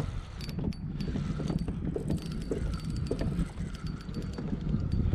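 Fishing reel being wound, a quick run of mechanical clicks over a low rumble of handling.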